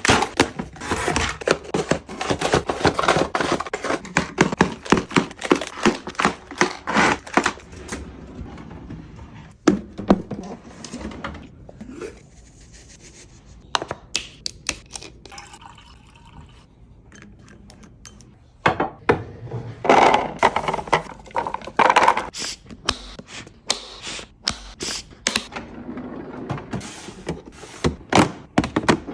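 Things being handled and set down: a busy run of clicks, knocks and rustling, thinning out midway and picking up again.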